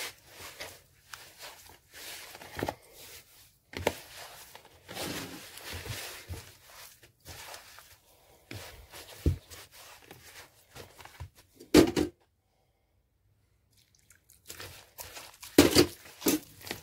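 Hands kneading a shaggy msemen dough of flour and fine semolina in a plastic bowl: irregular squishing and scraping, with two louder knocks. The sound cuts out completely for about two seconds a little past the middle.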